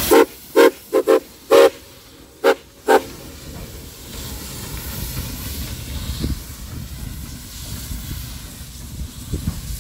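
Steam whistle of ex-C&O 2-6-6-2 No. 1309 sounding about seven short toots in the first three seconds, then the locomotive's steam hiss and running rumble as it moves away.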